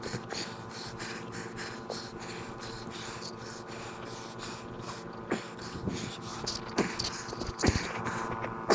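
A man breathing hard from exertion, with a few sharp knocks in the second half and a steady hum underneath.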